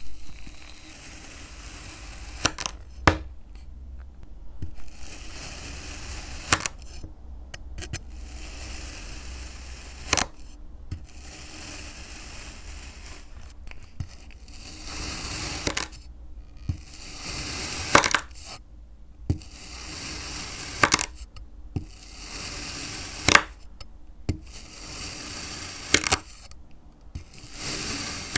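A knife slicing one thin slice after another off a crumbly green block: each cut is a gritty, scraping hiss lasting a second or two, ending in a sharp tap. About ten cuts in all.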